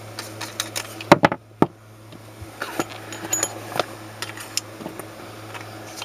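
Diversitech CO2 drain gun fired into a clogged air-handler condensate drain: a short, sharp blast a little over a second in, the loudest sound, with scattered clicks and knocks of the gun being handled at the PVC drain fitting. A steady low hum runs underneath.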